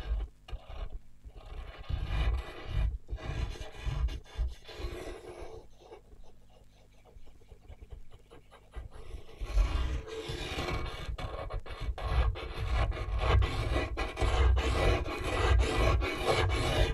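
Experimental sound-collage recording: an irregular noisy texture of many clicks and low thumps, sparse and patchy at first, quieter in the middle, then denser and louder from a little past halfway.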